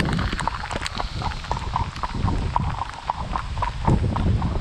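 A horse's hooves clip-clopping on a tarmac lane in a steady, even rhythm as she is ridden along.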